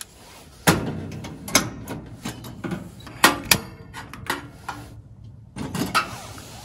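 Toyotomi Omni RS-H29M reflective kerosene heater being lit by hand: about nine irregular sharp clicks and metallic knocks from its controls and wire grille as the burner catches.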